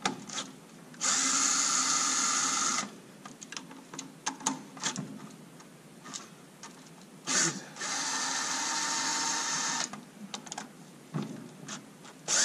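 Cordless power driver spinning out the supercharger's fuel rail bolts in two steady runs of about two seconds each, the first about a second in and the second near eight seconds, with clicks and knocks of the tool and bolts between. The bolts are stiff, held with thread-locking compound.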